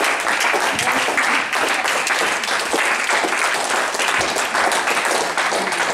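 Small audience applauding: dense, steady clapping from many hands.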